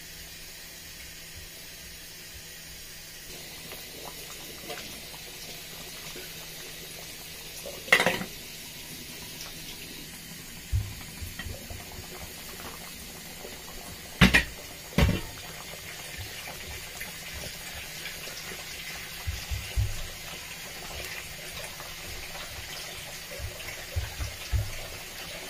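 Soup simmering in a large metal pot on the stove, a steady bubbling hiss with scattered low pops through the second half. A few sharp clatters against the pot stand out, one about eight seconds in and two close together around fourteen to fifteen seconds.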